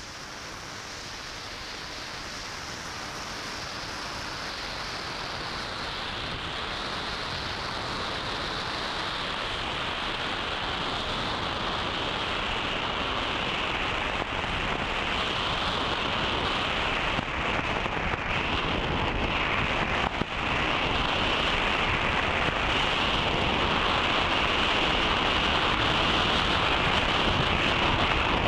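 Wind rushing over the microphone of a model airplane's onboard camera in flight: a steady, unpitched rush that grows gradually louder as the plane comes down.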